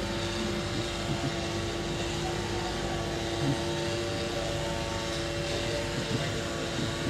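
A steady machine hum: one constant pitch with several overtones over a low rumble, unchanging throughout.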